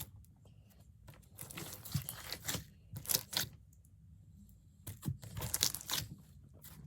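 Slime being pulled and peeled off a hand, in three noisy bouts of a second or so each.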